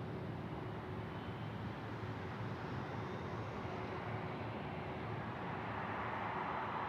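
Jet aircraft engine noise, a steady rush that swells toward the end and then starts to fade.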